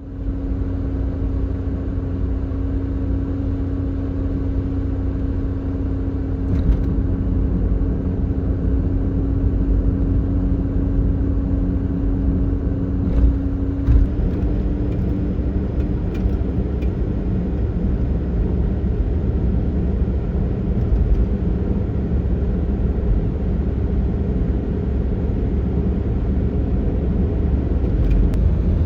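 Kei van's engine running, a steady drone over a low rumble; the main tone shifts slightly about fourteen seconds in.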